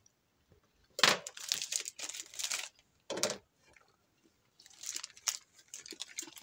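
Loud crinkling and crunching close to the microphone, in a burst of about two seconds and then a shorter one. Scattered lighter clicks and rustles follow near the end as a metal box grater is picked up over a glass dish.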